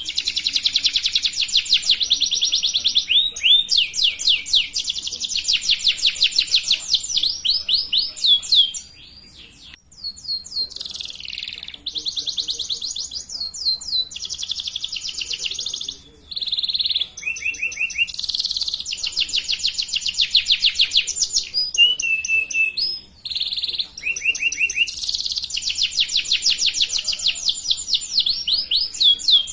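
Domestic canary singing: long runs of fast rolling trills, each phrase a rapid string of repeated notes, changing from one trill to the next, with a short break about nine seconds in. It is a lure song used to teach young canaries to sing.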